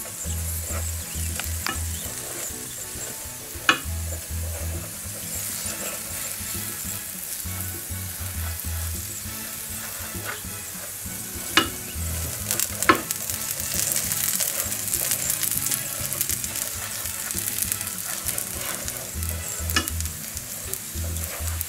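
Butter sizzling in a hot frying pan as a silicone pastry brush spreads it over a pan-baked flatbread, with a few sharp clicks along the way.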